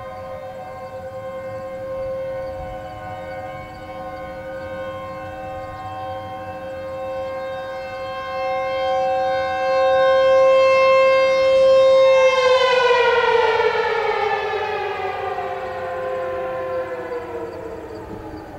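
Outdoor warning siren sounding a steady tone, then winding down about twelve seconds in, its pitch sliding lower and lower while it fades.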